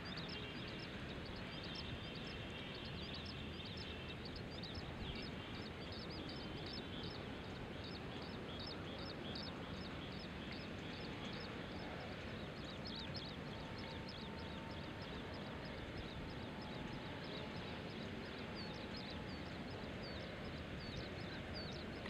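Outdoor ambience: a steady low rushing noise with many quick, high chirps scattered throughout.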